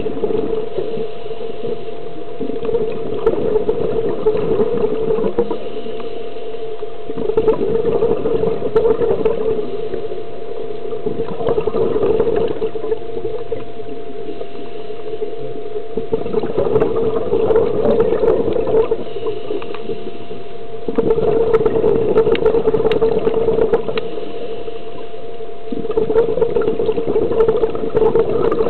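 Scuba diver's breathing heard underwater through the regulator: bubbling exhalation surges about every four to five seconds, with quieter inhalations between, over a steady hum.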